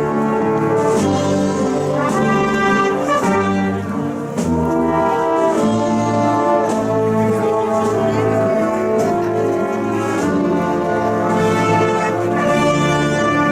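Brass band playing a slow Holy Week procession march: held brass chords with occasional drum and cymbal strokes.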